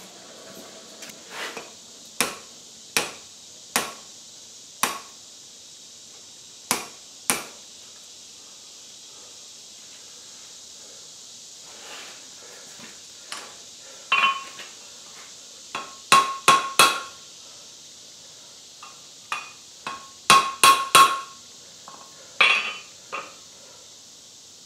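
Blacksmith's hammer striking hot steel on a steel anvil, shaping the piece: scattered single strikes at first, a lull, then from about the middle louder groups of blows with a clear metallic ring. A steady hiss runs underneath.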